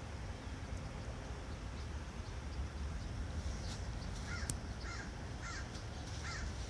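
A bird gives four short calls about half a second apart, starting a little past the middle, over a steady low background rumble.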